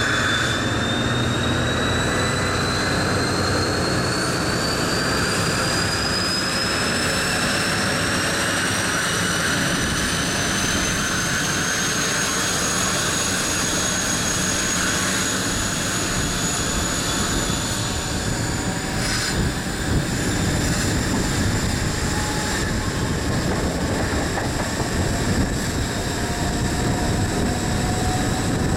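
Paxman Valenta diesel engine of an HST Class 43 power car working hard as the train accelerates away, its thrash heard with a loud turbocharger whistle that climbs in pitch for about twelve seconds and then holds steady.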